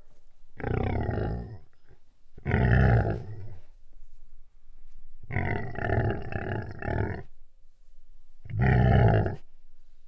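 Big beast growl sound effect: four deep, rough growls with short pauses between them, the third one longer and pulsing in about four beats.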